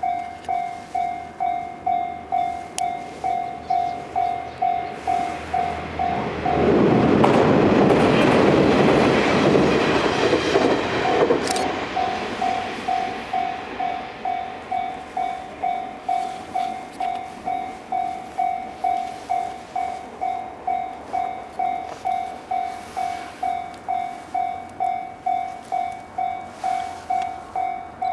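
Japanese level-crossing warning bell dinging about twice a second. A JR Kyushu 787 series electric limited-express train passes from about six to eleven seconds in, and its loud rail noise briefly drowns out the bell.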